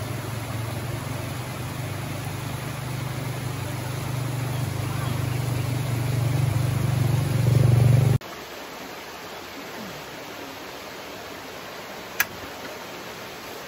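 A loud low rumbling noise that grows louder for about eight seconds and then cuts off, leaving the steady hiss of a shallow rocky stream. Near the end, a single sharp click as a portable butane cassette stove's igniter knob is turned.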